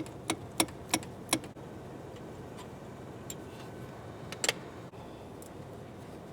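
Hand tools working on the EGR pipe fitting: five sharp metallic clicks about three a second, then a louder clink about four and a half seconds in.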